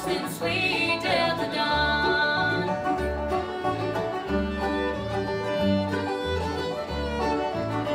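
Live bluegrass band playing: fiddle, banjo, mandolin, acoustic guitar and upright bass together, the upright bass thumping out a steady beat beneath.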